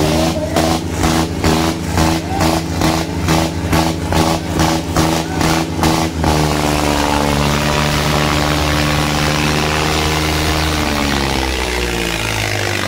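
Diesel tractor engines running hard under full load in a tractor tug-of-war. For the first six seconds a loud rhythmic pounding, about three beats a second, sits over them and then stops. The engine note holds steady, then falls in pitch near the end as the engine is pulled down.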